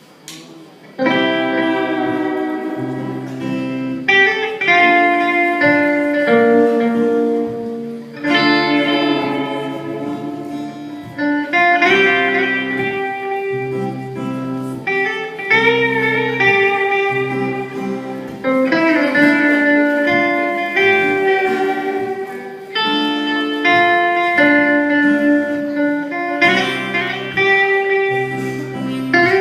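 Guitar playing the slow opening of a band's original song, starting about a second in: ringing chords and single notes that change about every three to four seconds, with no drums.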